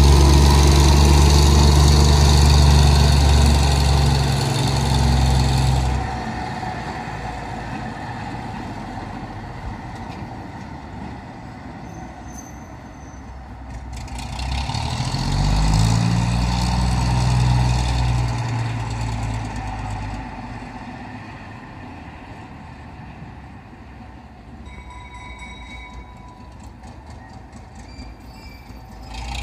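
Diesel switcher locomotive engine running, loud and steady for the first six seconds, then quieter. Around the middle it revs up, rising in pitch, then drops back down to a low idle.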